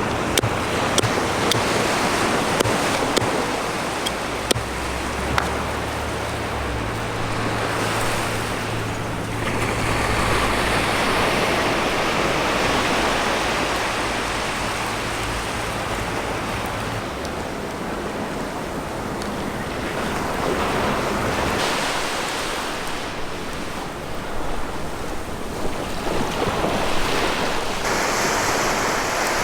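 Sea waves surging on the shore, the wash swelling and ebbing every several seconds. Sharp clicks dot the first few seconds and return near the end, and a low steady hum runs through about the first half.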